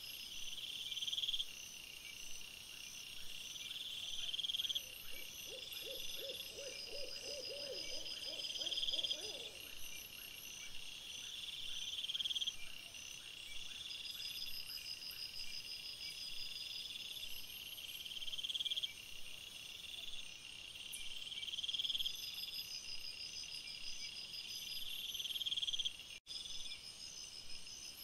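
Night-time woodland chorus of animal calls: high-pitched trills repeating every second or two, with higher chirps above them, and a lower rapid pulsed call from about five to nine seconds in. The sound cuts out for an instant near the end.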